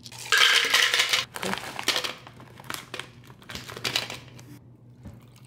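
Packaging crinkling and rustling in irregular bursts, loudest in the first second, as smoothie ingredients are handled.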